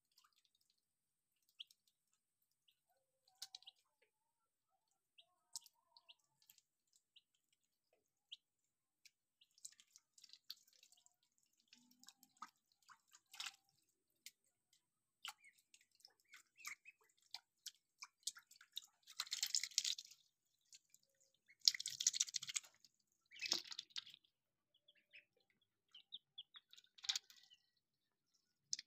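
Faint small splashes, drips and clicks of ducklings dabbling and wading in shallow water, with a few louder bursts of splashing about two-thirds of the way through.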